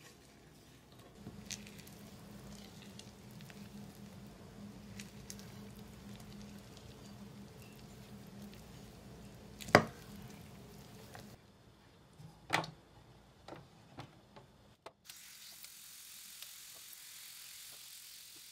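Waffle batter being folded and stirred with a metal spoon in a glass bowl: soft squishing and scraping, with clinks of the spoon against the glass, the two loudest about ten and twelve and a half seconds in. From about fifteen seconds in, a steady faint hiss as batter goes onto the hot waffle iron.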